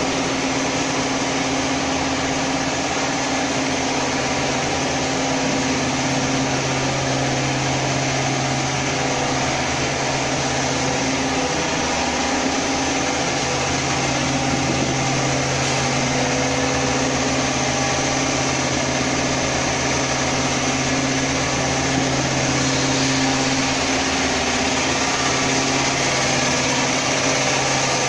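Food-processing machinery running steadily: a constant mechanical hum with a low drone and a hiss.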